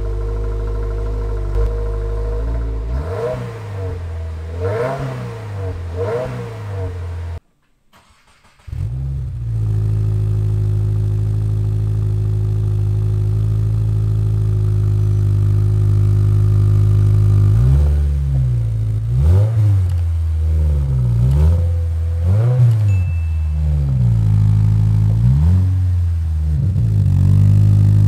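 2024 Subaru WRX's turbocharged flat-four idling and being blipped, heard from the tailpipes. It is first on the stock exhaust, with three quick revs. After a brief cut it idles on the newly fitted Invidia N1 cat-back exhaust and is revved several times in a row.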